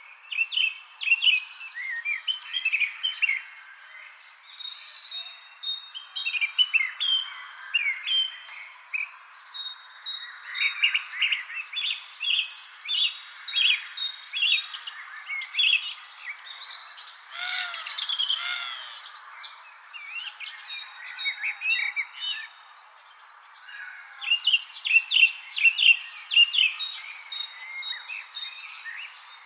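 A chorus of songbirds chirping and singing in quick, overlapping phrases of short rising and falling notes, over a continuous high, steady trill.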